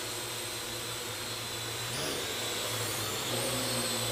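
Quadcopter drone hovering, its electric rotors giving a steady high whine over a motor hum. The pitch briefly rises and falls about halfway through, then steps up a little near the end as the rotors speed up.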